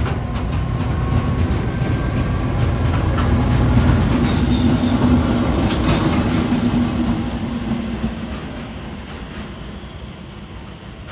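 DB class 295 diesel-hydraulic shunting locomotive passing close with its tank-container wagons: a steady low diesel drone, with wheels clicking over rail joints and faint thin wheel squeals. It swells to its loudest about four to six seconds in, then fades as the train pulls away.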